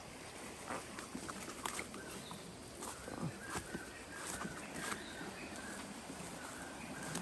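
Footsteps crunching and rustling through dry leaf litter and twigs, many short crackles at walking pace. From a few seconds in, short repeated animal calls run underneath.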